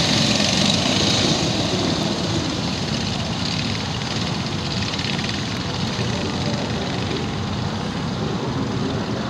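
A pack of racing karts' small engines buzzing together as they run through the corners, a little louder in the first second or two, then steady.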